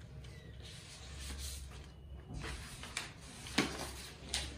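Sheets of coloured paper rustling as they are leafed through and pulled from a stack, with two sharp crackles near the end, the loudest sounds.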